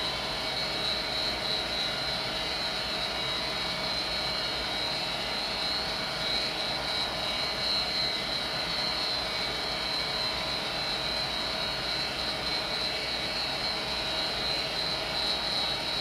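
Vintage Armstrong gas furnace running, burner lit, with its inducer and blower motors going: a steady, noisy drone with a high whine on top.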